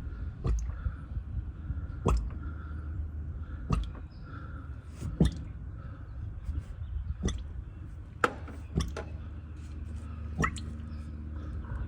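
Old engine oil dripping from the drain into a catch pan, single drops landing about every one to two seconds over a low steady hum.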